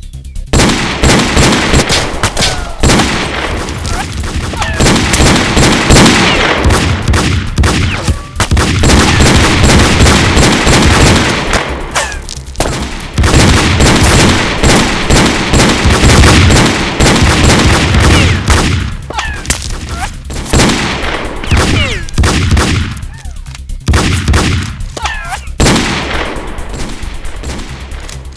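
Gunfire sound effects: rapid, almost continuous gunshots layered over one another, broken by a few short lulls.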